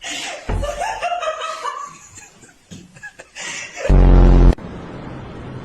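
A person laughing and snickering, then a loud, low buzzing tone for about half a second near the end, followed by a steady hiss.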